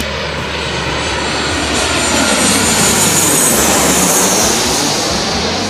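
Boeing 737 airliner on final approach passing low overhead, its twin CFM56 turbofan engines swelling to a loud rush about three to four seconds in. A high whine falls in pitch as the plane goes over, and the sound then fades.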